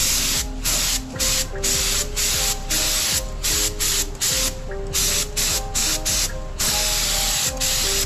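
Harbor Freight gravity-feed air spray gun spraying primer, hissing in short bursts about twice a second as the trigger is pulled and released.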